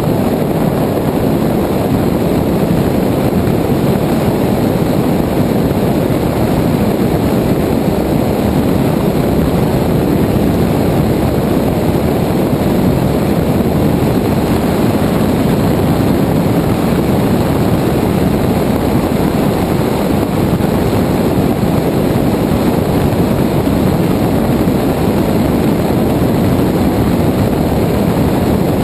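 Single-engine Cessna 172 in level flight, its piston engine and propeller droning steadily, mixed with wind rushing over a camera microphone mounted outside under the wing. The sound holds an even, unchanging level throughout.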